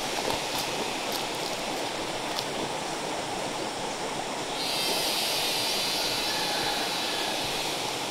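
A shallow forest stream runs steadily over rocks. About halfway through, a steady, higher hiss joins it.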